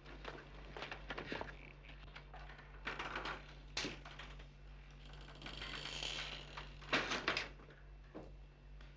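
Footsteps on a hard floor: irregular clicks and knocks at a walking pace, loudest in a quick cluster about seven seconds in, over a steady low hum.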